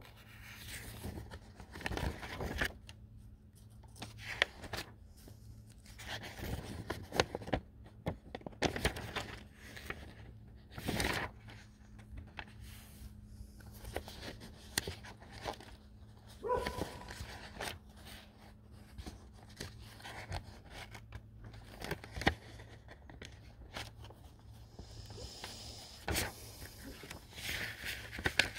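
Handling noise from a camera left recording: fabric or hands rubbing and scraping against the covered microphone in irregular rustles, with sharp knocks now and then, over a low steady hum.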